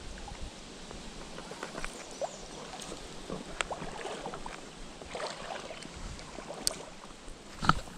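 Creek water sloshing and splashing, with scattered small clicks and a sharper knock near the end.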